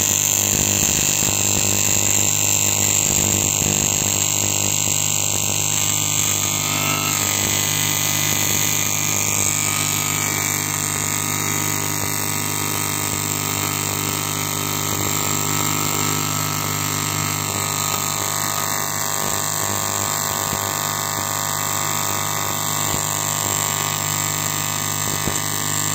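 AC TIG welding arc on porous, contaminated cast aluminium-silicon alloy, giving a steady buzz over a hiss. The welder is set to a sine wave at 50 Hz, and that frequency sets the pitch of the buzz.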